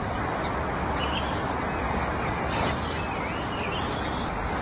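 Small birds chirping a few times over a steady background hubbub of outdoor noise.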